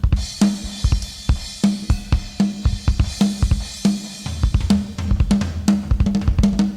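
Drum kit playing a busy, fast pattern: deep bass drum kicks, pitched drum hits and snare strikes, with cymbals and hi-hat on top.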